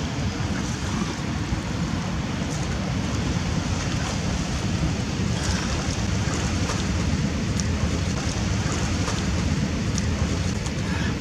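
Steady wind rumbling on the microphone, with a fainter hiss above it and a few faint small clicks or splashes.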